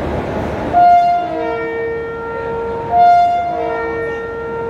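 Train horn sounding two blasts about two seconds apart. Each is a chord of steady tones that opens on a brief higher note and then holds lower.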